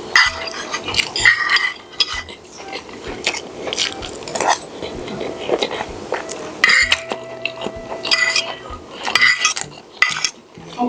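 Cutlery clinking and scraping against a plate during eating, in irregular bursts several times.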